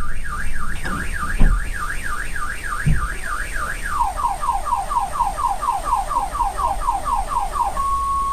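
A car alarm siren cycles through its tones: a fast up-and-down warble, then about four falling chirps a second from about four seconds in, then a steady tone near the end. A loud thump comes about one and a half seconds in, and a fainter one near three seconds.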